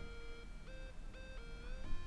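Background electronic music: synth tones that slide up and down between held pitches over a steady low bass.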